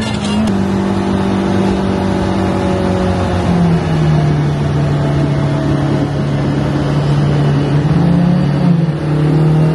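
Car engine and exhaust droning steadily, heard from inside the cabin while cruising on the highway at night, over road noise. The engine note steps down once, a little under four seconds in.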